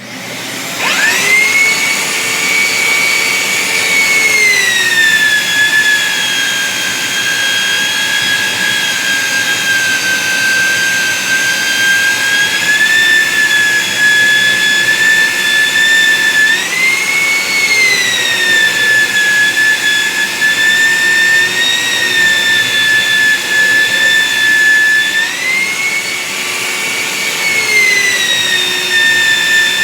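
Handheld electric sander, clamped upside down as a makeshift stationary sander, starting up and running loudly with a high whine. Its pitch drops for a few seconds several times and then recovers, as a chair leg is pressed against the sanding surface and eased off.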